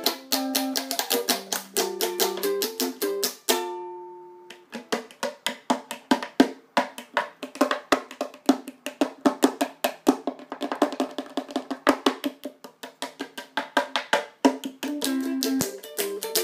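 A small four-string ukulele played with a plastic pick: a short run of single picked notes, then, after a brief pause, about ten seconds of fast, even, percussive strumming, and single notes again near the end.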